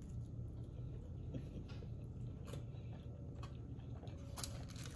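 A person biting into and chewing a birria taco, shredded beef and cheese in a fried tortilla, with a few faint mouth clicks. A steady low hum runs underneath.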